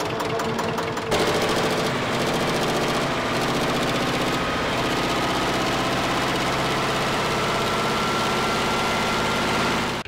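Fishing boat's inboard engine running during a pre-departure engine check. It gets louder about a second in, then runs steadily.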